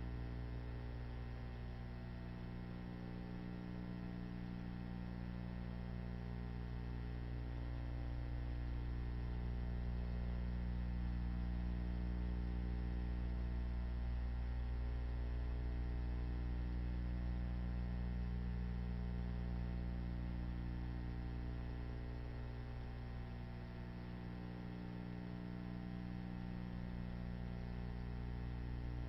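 Steady electrical mains hum, deep and unchanging, with no other sound.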